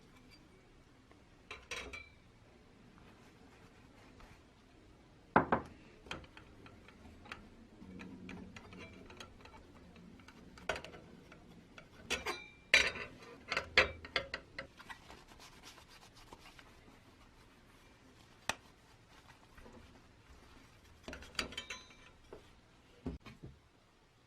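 Hand work on old fan parts: scattered light knocks and clinks with some rubbing. A sharper knock comes about five seconds in, and a busier run of clinks comes around the middle.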